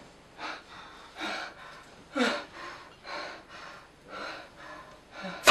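A man breathing hard in ragged gasps, a breath every half second to a second, with one louder, voiced gasp about two seconds in.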